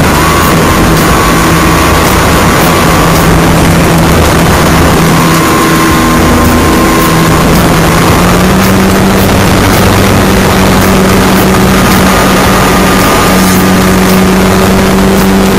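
Radio-controlled model airplane's engine running loud, heard from a camera mounted on the plane in flight, with heavy wind rush. Its pitch steps up slightly about halfway through and again near the end.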